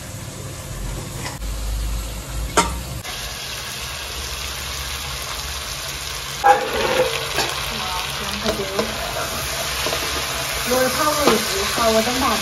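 Fried fish pieces and potatoes sizzling in a hot pot. About halfway through, a liquid spice mixture hits the pan with a sudden loud sizzle, and a wooden spatula then stirs and scrapes through the pieces. Earlier there is a single sharp tap.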